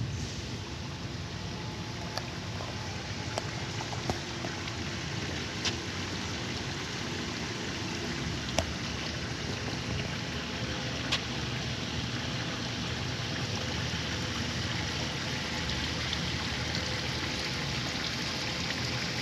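Steady rushing of water, with a few sharp clicks.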